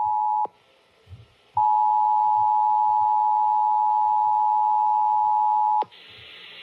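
Emergency Alert System two-tone attention signal, a steady dual tone that breaks off half a second in, sounds again after about a second and holds for about four seconds, then cuts off to a rising hiss.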